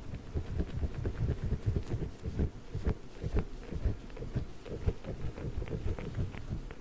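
A giant Orbeez water-bead ball being handled: a quick, uneven run of soft, low squishing thuds, several a second, with occasional sharper clicks.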